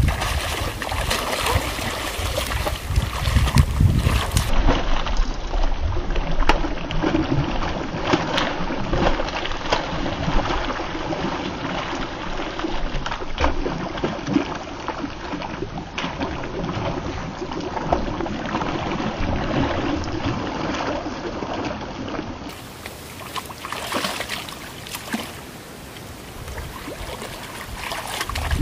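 Water splashing again and again as a hooked catfish thrashes at the surface in shallow water.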